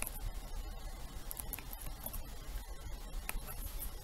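Computer keyboard keys clicking: a few scattered keystrokes at an irregular pace.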